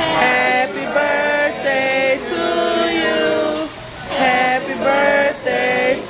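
Music with singing: a melody of held sung notes, with a short dip in level just before the fourth second.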